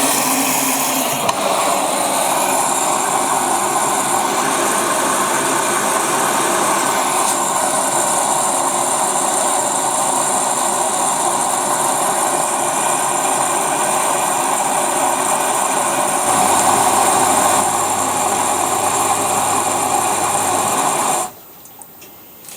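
ELIN WA 14 M washing machine running with a steady noise, a low hum joining for a couple of seconds about 16 seconds in; it cuts off suddenly near the end.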